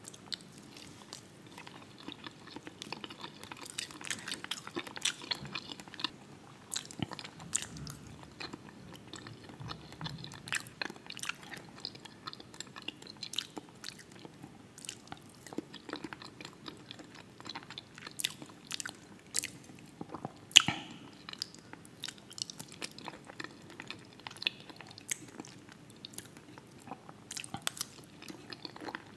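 Close-miked chewing and mouth sounds of a person eating fried fish, potatoes and red cabbage, with an irregular run of sharp wet clicks and smacks.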